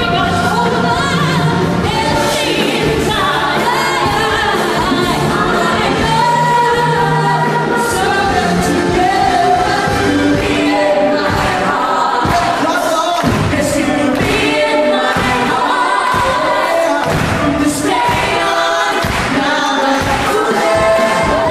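Loud amplified stage music with a male singer singing into a microphone, other voices joining in, over a steady beat.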